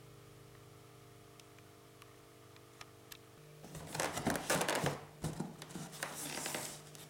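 Unboxing packaging being handled: a few light clicks, then about three seconds of loud rustling and crinkling.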